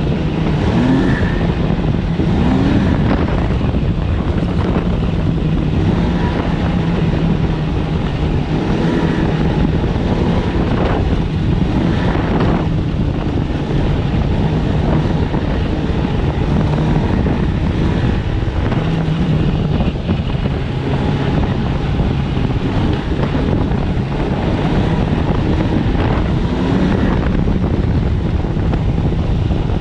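Snowmobile engine running steadily while riding, its note shifting a little up and down, with wind noise on the microphone.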